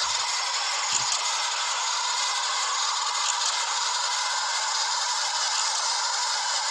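Steady, dense hiss of noise at an even level, with no speech or music in it.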